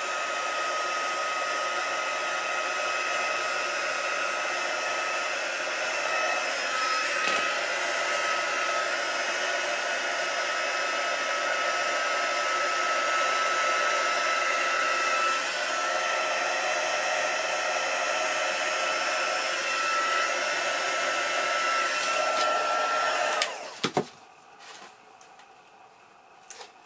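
Small craft embossing heat gun blowing steadily, a hiss with a high whine held at one pitch, then switched off suddenly near the end and followed by a few faint clicks. The hot air is warming the calculator's reset-handle bearings to thin old, thickened oil that has seized the handle.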